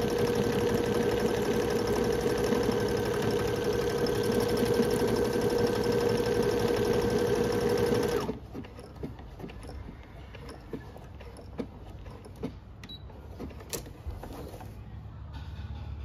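Brother BF5700 electronic sewing machine stitching an automatic buttonhole with its buttonhole foot, running steadily, then stopping by itself about halfway through as the buttonhole is finished. After that, only faint clicks and handling sounds.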